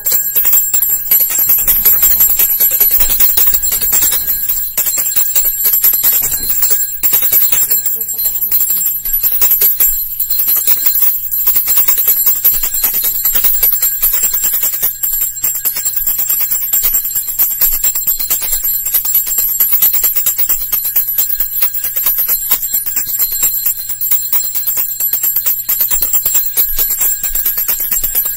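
A small metal hand bell shaken rapidly and without a break: a steady, high, bright ringing over a dense, fast rattle.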